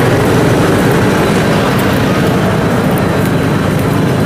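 Engine of a homemade tracked rice combine harvester running steadily and loudly as the machine sets off across muddy ground.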